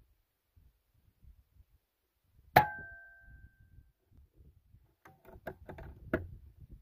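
Hatsan Nova .22 air rifle firing once, about two and a half seconds in: a sharp crack with a short metallic ring after it. A run of small clicks and knocks follows, the loudest about three and a half seconds after the shot.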